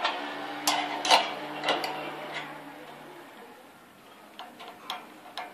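Sharp metal clicks and clinks of steel tools on a hand-lever bending jig: four loud ones in the first two and a half seconds, then fainter, quicker ticks as a spanner is worked on the jig's bolt. A faint low hum runs under the first three seconds.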